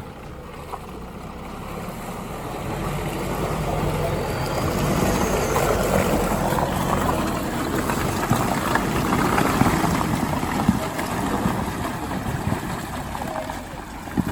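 Off-road vehicle's engine running hard under load while it pushes through a muddy, water-filled rut, with a rush of splashing that builds, peaks midway and fades, and a couple of knocks near the end.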